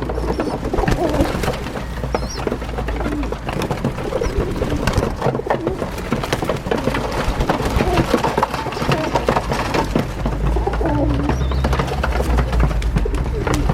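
Feral rock pigeons cooing repeatedly, mixed with a few short high squeaks and many sharp taps of beaks and claws pecking on the windowsill.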